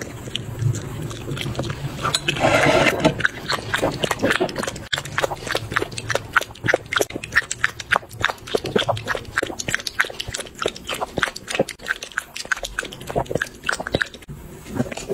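Small dog eating rice from a bowl, lapping and chewing: a rapid run of wet clicks and slurps, several a second, with a louder slurp about two to three seconds in.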